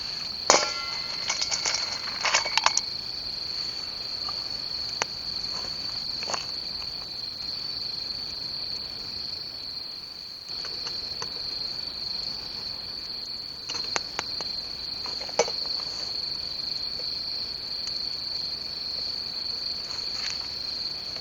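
Crickets chirping in a steady, unbroken high-pitched trill, with a few scattered clicks and knocks, a cluster of them in the first few seconds.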